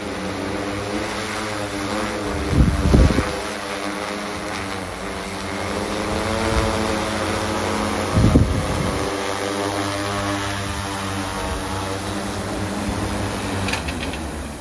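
Large quadcopter drone's propellers humming with several steady tones as it descends to land on a drone dock. Two loud gusts of wind buffet the microphone, about two and a half and eight seconds in. The rotor sound drops away right at the end as the drone touches down.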